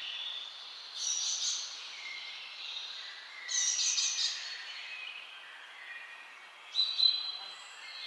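Several birds chirping and singing together in a mixed chorus, with louder rapid chattering calls about a second in and again around three and a half seconds, and a sharp louder call near seven seconds.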